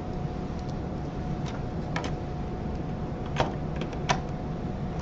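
Light clicks and taps of parts being handled on a copier's PCDU drum and developer unit while its two screws are installed, with three sharper clicks about two, three and a half and four seconds in. A steady faint hum runs underneath.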